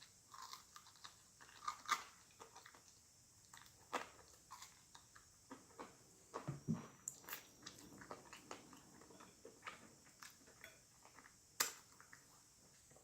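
Close-mic chewing and mouth sounds of a person eating fried catfish and grits. Irregular sharp clicks and smacks are scattered through it, the loudest about two, four and eleven and a half seconds in.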